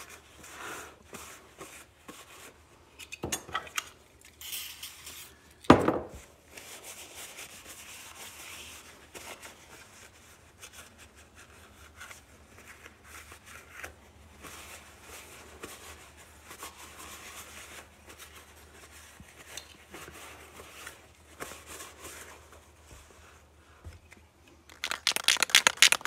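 A paper towel rubbing and wiping hard plastic seatbelt buckle covers, with scattered light clicks of plastic and a sharp knock about six seconds in. A louder rush of noise sets in just before the end.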